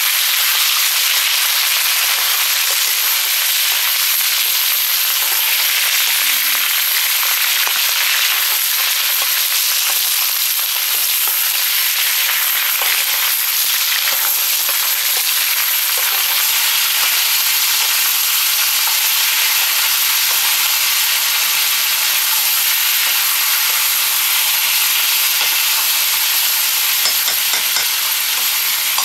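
Sliced potatoes frying in hot oil in a wok, a steady sizzle, with occasional scrapes and clicks of a metal ladle stirring them.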